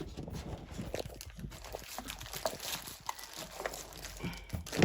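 Scattered light taps and rustles of a straightening comb's box and packaging being handled and put away.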